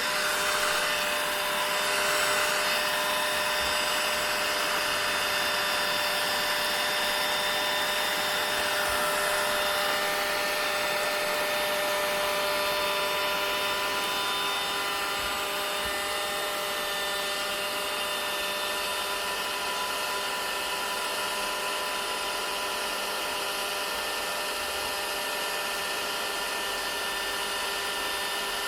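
Vacuum cleaner running steadily: a continuous rushing hiss with a high motor whine of several steady tones, easing slightly quieter about halfway through.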